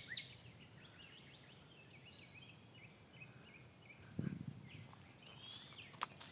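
Songbirds singing faintly, a string of short, varied chirps through the first four seconds. A low thump comes about four seconds in and a sharp click near the end.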